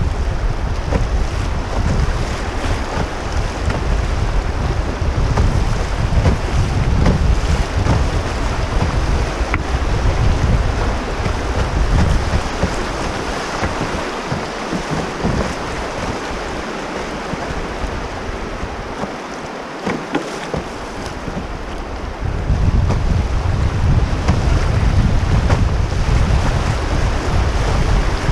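Fast glacial river water rushing and splashing around a canoe running riffles, with wind buffeting the microphone. The wind rumble eases off for several seconds in the middle, then comes back.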